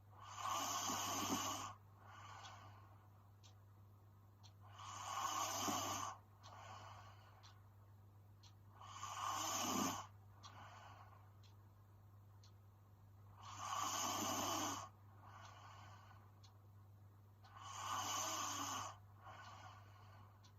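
A sleeping young woman snoring: five loud snores at a slow, even pace about four seconds apart, each followed by a fainter, shorter sound. A steady low hum runs underneath.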